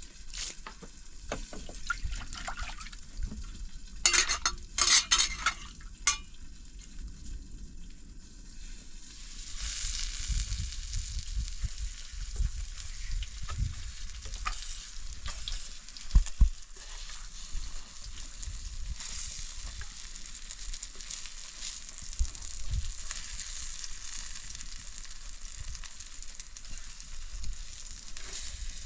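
Food sizzling as it fries in a pan, a steady crackling hiss. A few sharp clatters come about four to six seconds in.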